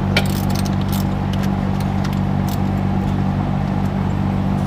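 A steady low mechanical hum runs throughout, with scattered sharp clicks and clinks of metal exhaust parts being handled and fitted by hand.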